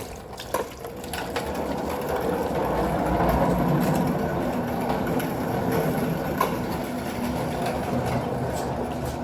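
A wet/dry shop vacuum, full of water, rolled along on its casters with a steady rumble that builds over the first few seconds, after a few clicks of the lid and handle being handled.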